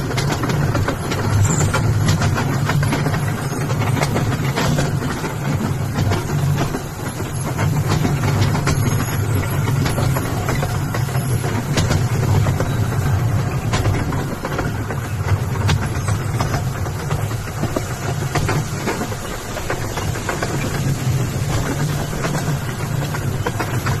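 A small rail trolley running along its track, a steady low rumble with rattling clicks.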